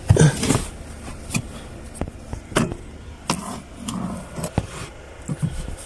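Handling noise from work under a car's dashboard: a series of scattered sharp clicks and knocks, as hands and the camera brush against the plastic trim.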